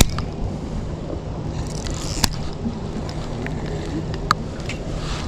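Boat motor running steadily with wind and water noise, and a couple of sharp clicks about two and four seconds in.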